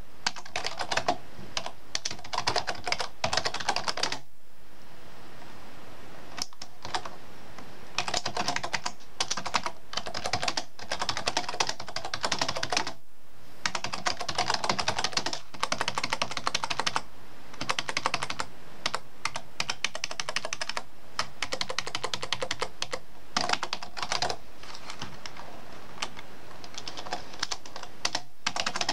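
Typing on a computer keyboard: fast runs of key clicks broken by short pauses, the longest about four seconds in, lasting around three seconds.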